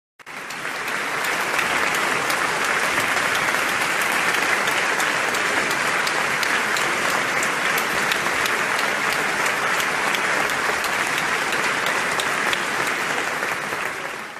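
Applause from an audience, many hands clapping steadily; it starts abruptly and dies away at the very end.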